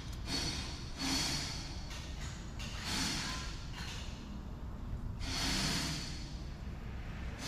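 A person breathing hard: four noisy breaths, each about a second long, over a steady low rumble.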